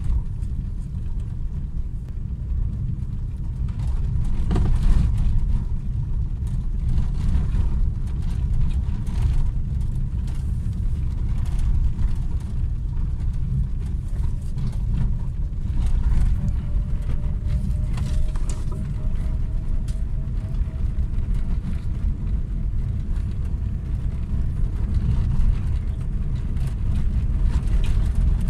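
Car driving over an unpaved dirt road, heard from inside the cabin: a steady low rumble of tyres and suspension on the rough track, with scattered knocks and rattles from bumps.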